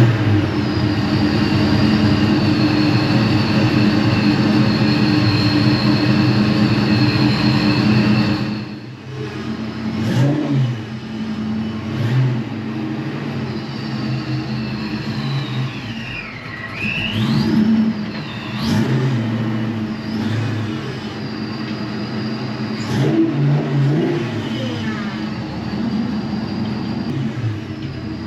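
Fox-body Mustang engine just caught after several near-starts, running at a fast idle, then dropping to a lower idle about eight seconds in, with a few short revs.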